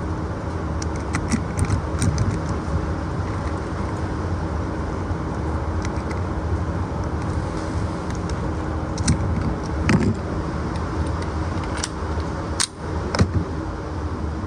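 Steady low rumble of a car heard from inside the cabin, with scattered light rattles and clicks and one sharp click near the end.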